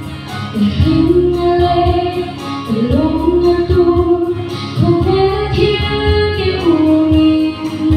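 A woman singing a gospel song solo into a microphone, amplified through the PA, over an instrumental accompaniment with a steady low bass pulse.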